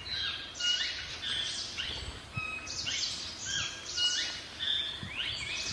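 Wild birds calling in forest, a busy run of short high chirps and quick sliding whistles overlapping several times a second.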